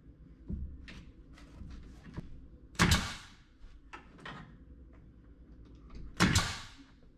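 Two loud sharp bangs about three and a half seconds apart, each trailing off over about half a second, with lighter knocks and taps between them, from tongue-and-groove pine ceiling boards being worked and fastened into place overhead.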